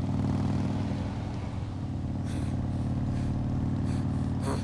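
Harley-Davidson Fat Boy's V-twin engine running steadily at a cruise, a constant low engine note.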